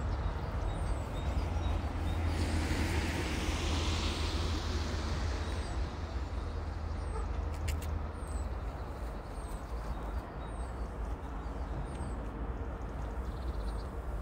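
Low, steady rumble of a DB V60 diesel shunting locomotive running in the distance. A few seconds in, a rush of noise swells and fades away.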